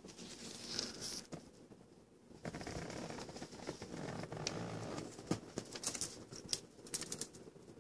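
Soft scratching and rustling, denser in the middle, with several sharp clicks in the second half.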